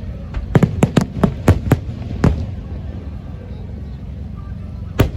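Aerial fireworks bursting: a quick string of sharp bangs over the first two seconds, then a low rumble, then one more loud bang near the end.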